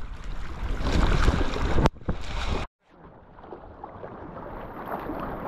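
Wind buffeting an action camera's microphone while kayak paddles splash through choppy sea water, with a sharp knock about two seconds in. The sound cuts out for a moment just after, then returns as quieter water lapping and paddle splashes.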